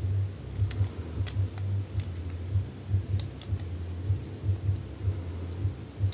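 Scattered small clicks and taps of a plastic action figure and its packaging being handled, over a low, uneven rumble.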